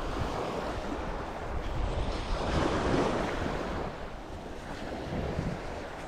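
Sea waves washing onto the beach, one swelling loudest about two and a half seconds in and a smaller one near the end, with wind noise on the microphone.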